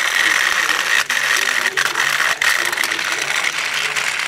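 Motorized plastic toy train running along its track, its motor and gears making a steady whirring, with a few brief dropouts.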